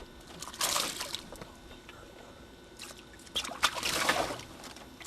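Water splashing and trickling in short bursts: one about half a second in, then a longer one of about a second past the three-second mark.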